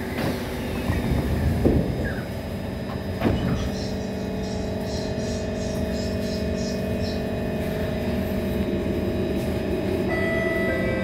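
Doors of an SMRT C151 train thud shut, with two knocks about two and three seconds in. The train's steady electrical hum follows. Near the end, higher whining tones come in one after another as the traction motors start the train moving off.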